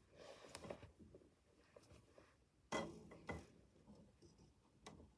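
Faint scattered clicks and knocks of something being handled, with two louder knocks a little over halfway through, in a quiet small room.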